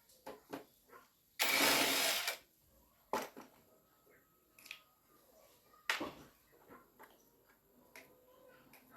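Scattered clicks and knocks of small parts being handled, with one loud hiss lasting just under a second about a second and a half in.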